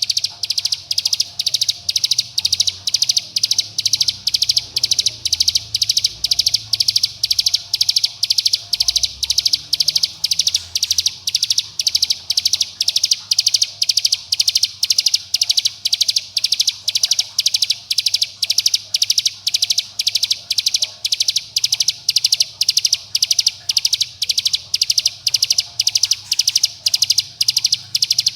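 Ciblek gunung (mountain prinia) giving its rapid 'bren' call: a steady, unbroken run of short, high, sharp notes, about three a second. This is the call the birds use to call companions and to challenge rivals.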